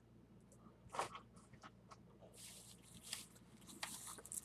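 Faint crinkling and rustling of plastic packaging as items are handled, with a knock about a second in and a few light clicks.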